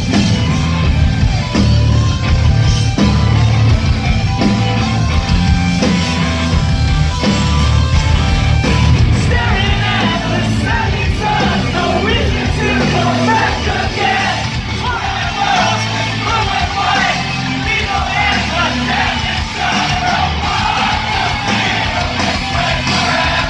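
Post-hardcore band playing loud live rock, with drums, electric guitars and sung and shouted vocals over the venue's sound system, heard from within the crowd. About ten seconds in, the voices come up more strongly.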